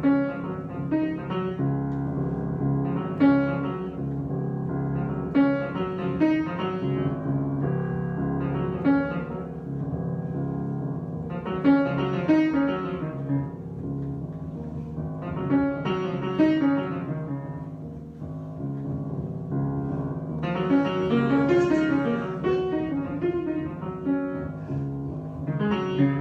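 Improvised piano music: sustained chords with struck melodic phrases, swelling into a busier, louder passage about two-thirds of the way through.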